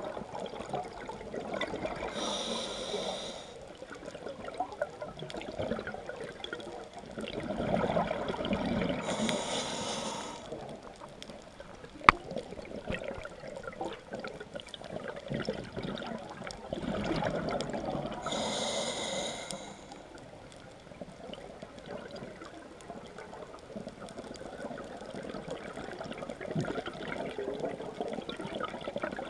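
Scuba diver breathing through a regulator underwater: three breaths about eight seconds apart, each with a hiss and a swell of bubbling, over a steady watery rumble. A single sharp click comes about twelve seconds in.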